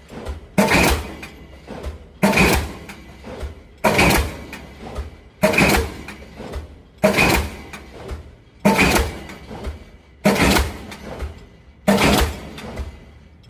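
Diesel pile-driving hammer striking a pile in a steady rhythm, one sharp blow about every one and a half seconds, eight blows in all, each with a short ringing tail. A low steady rumble runs underneath.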